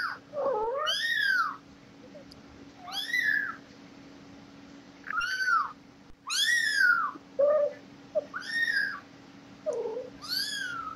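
Newborn kittens mewing: a string of about seven high, arching cries, one every second or two, with a few lower, shorter calls in between.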